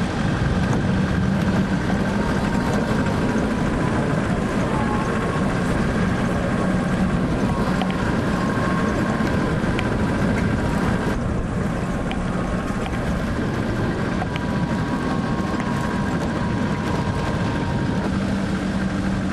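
Car driving along with a steady engine and road noise, with a low hum and a faint wavering whine over it.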